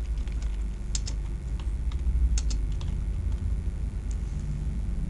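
Computer keyboard being typed on: slow, uneven key clicks as a word is entered, over a steady low hum.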